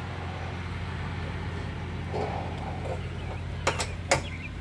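Two sharp metallic clicks near the end as a propane hose's quick-connect coupling is handled and snapped onto its fitting, after a short rustle of handling. A steady low hum continues underneath.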